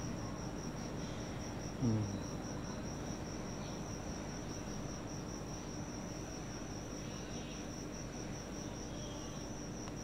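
Crickets chirping steadily in the background, a continuous high, evenly pulsing trill. A short low voice sound falls in pitch about two seconds in.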